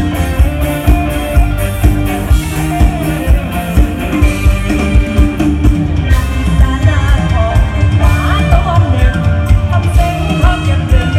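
Live Isan mor lam band music played loud through a PA system: a steady drum beat of about two beats a second under a singer's voice.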